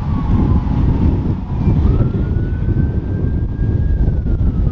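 Police siren wailing, its pitch sliding slowly down, then up and holding, then down again, over a heavy low rumble.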